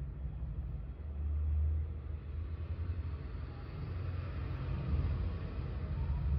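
Low, uneven background rumble that swells and eases, with a faint hiss above it.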